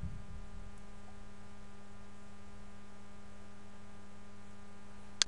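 Steady electrical hum, a low even tone with overtones and no changes, with one sharp click right at the end.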